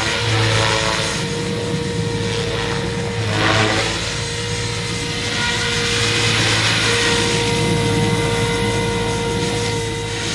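Radio-controlled model helicopter in flight: its rotor and drivetrain give a steady whine over a low hum, swelling briefly about three and a half seconds in.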